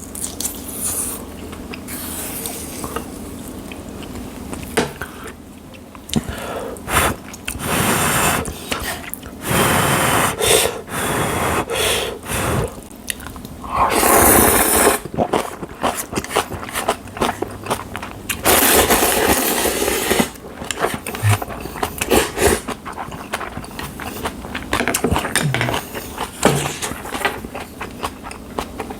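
Close-miked eating of spicy jjamppong ramen noodles: several long, loud slurps, each a second or two, between stretches of chewing with small crunching and smacking noises.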